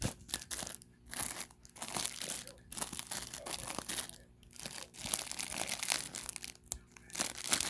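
Snack packaging being handled: crinkling and crackling as the box and wrapping are folded and crumpled, in several spurts with brief pauses between them.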